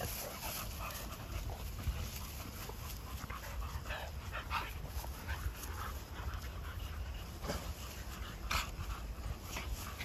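American Bully dogs panting and snuffling as they move about in long grass, with a few short rustles or snorts in the middle and near the end.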